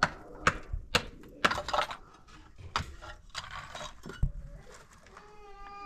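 An irregular run of sharp knocks and clinks of hard objects, with one heavier thump a little past the middle. Near the end a child starts crying, a wavering wail.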